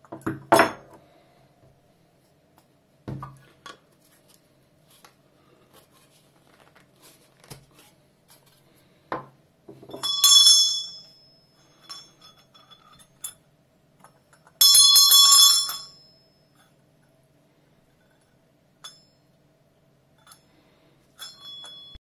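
Antique brass hand bell rung twice, about four seconds apart: each a bright, clear ring of several high tones that rings out for a second or so. A shorter, fainter ring comes near the end. Before the rings there are a few knocks as the bell is handled.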